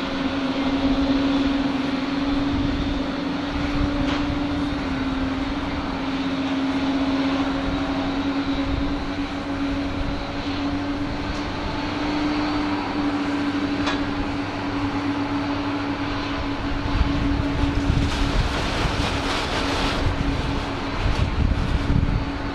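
Boeing 747-400's four jet engines running at low taxi thrust as the airliner lines up on the runway: a steady engine hum with a constant droning tone. Near the end a louder low rumble and hiss rises and falls over it.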